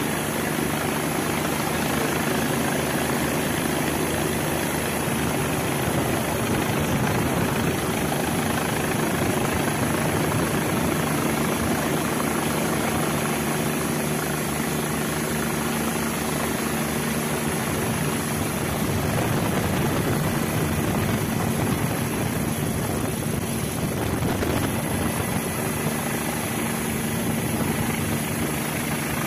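Steady rotor noise from the rotorcraft filming overhead: an even hum with a few steady whining tones, running without a break.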